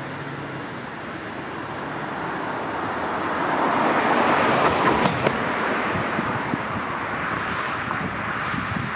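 A car passing on the road, its tyre and engine noise swelling to a peak about halfway through and then fading.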